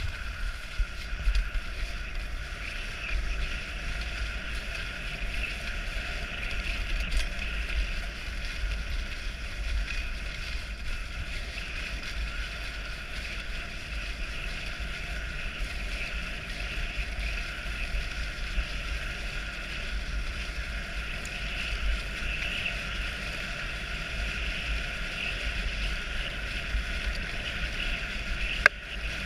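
Dog sled gliding over packed snow: a steady hiss of the runners with a low wind rumble on the microphone. A single sharp knock near the end.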